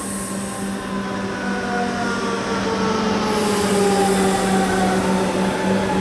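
A train running past, growing louder, with a steady hum and several whining tones that slowly fall in pitch. A high hiss sets in about three seconds in.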